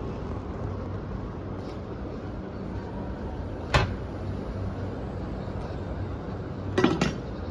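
Steady city street ambience with a low hum, broken by a single sharp knock about halfway through and a quick double knock near the end.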